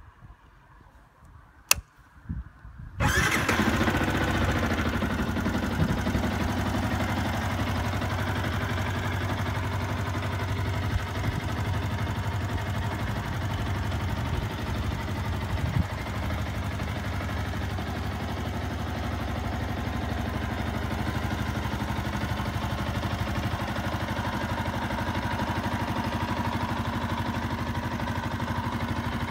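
Yamaha YZF-R125's single-cylinder four-stroke engine being started: a click just under two seconds in, the engine catching about a second later, then settling into a steady idle.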